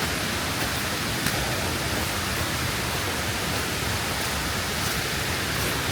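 River water rushing steadily, an even full-range hiss with no break.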